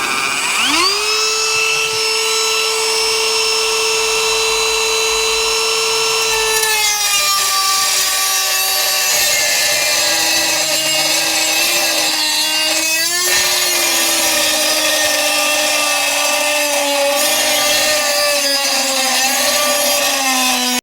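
Cordless rotary tool with a cutoff wheel, a high, steady whine that spins up about a second in. After a few seconds the pitch drops and wavers as the wheel bites into thin sheet metal, with a rasping grind of the cut.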